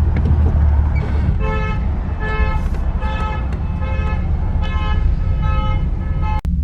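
A vehicle horn sounding a run of about seven short honks, one roughly every 0.8 seconds, over the low rumble of an idling engine.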